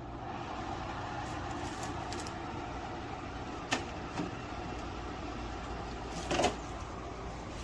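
Steady whooshing hum from a portable air conditioner's fan. Two short clicks come near the middle, and a louder knock comes about six seconds in.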